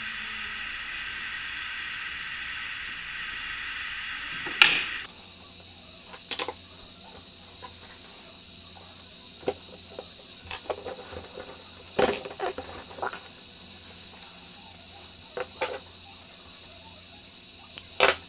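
Hand soldering of wires onto a small circuit board: scattered short clicks and taps from the iron and wires being handled, over a steady hiss. The hiss shifts higher about five seconds in.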